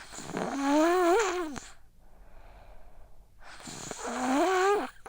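A sick young child snoring in her sleep: two loud snores with a wavering, raspy pitched tone, about three seconds apart, with softer breaths between them.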